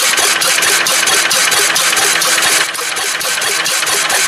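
1930 Fairbanks-Morse Model Z Style C 3 hp flywheel engine running steadily with a quick, even beat; it is throttle-governed, so it fires every cycle rather than hit-and-miss. The sound dips slightly about two and a half seconds in.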